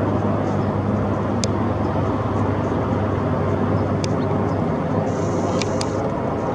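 Attack helicopter flying overhead, its main rotor and turbine engine making a steady drone.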